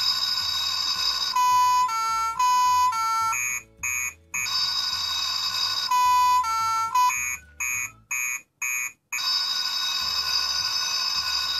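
Electronic fire alarm sound effect from the SIMBA Fireman Sam fire station toy, set off by its fire button and played through a small speaker. A steady buzzing tone switches to a two-note nee-naw at about two notes a second and back again. The cycle repeats with short breaks.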